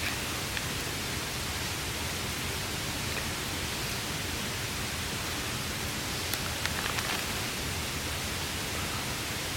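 Rain falling on a tarp, a steady hiss, with a few sharp crackles from a campfire, most of them between six and seven seconds in.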